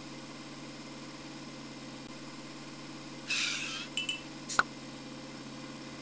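Truck engine idling steadily, with a short hiss about three seconds in and a few sharp clicks soon after.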